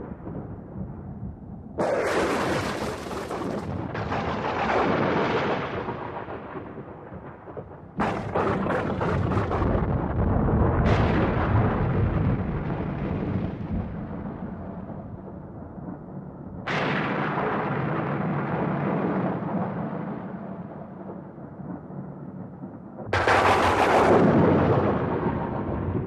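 Thunder: a series of about six sudden cracks, each rolling off into a long, slowly fading rumble.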